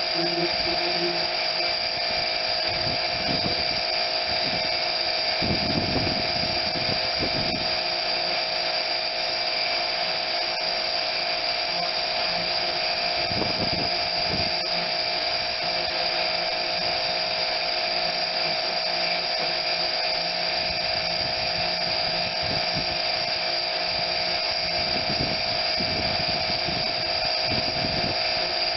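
Small pressure washer running steadily with a constant high-pitched whine and the hiss of its water spray, with a few low rumbles as the spray moves.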